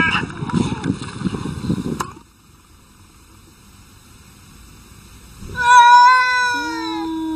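Two cats fighting in a noisy scuffle that cuts off abruptly about two seconds in. After a quiet pause, a domestic cat lets out a long, loud yowl near the end, its pitch falling steadily.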